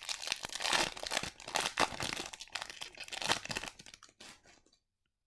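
Plastic card wrapping crinkling and rustling as trading cards are handled, in rapid irregular crackles that stop about four and a half seconds in.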